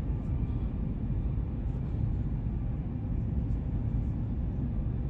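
Steady low rumble of a moving vehicle, even throughout with no distinct events.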